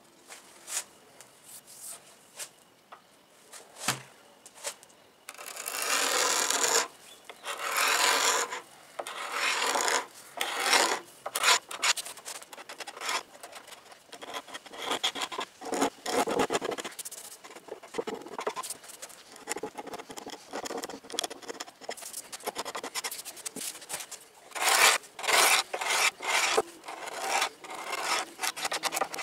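A flat wood chisel scraping cured polyurethane finish off the edge of a wooden tabletop in repeated, irregular strokes. The scraping starts about five seconds in, after a few light clicks.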